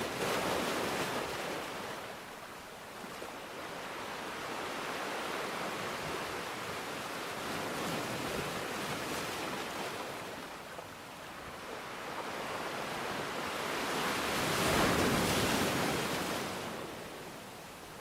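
Rushing water noise that swells and fades in slow surges, loudest about fifteen seconds in.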